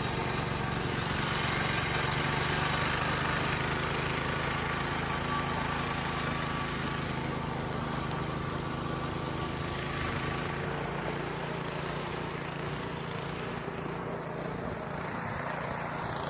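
Snow blower's small engine running steadily, a constant drone that grows a little quieter and duller after about ten seconds.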